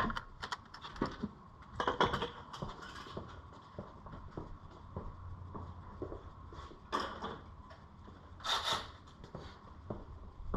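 Scattered light clicks and knocks of metal parts and hand tools being handled during engine-bay disassembly, over a steady low hum.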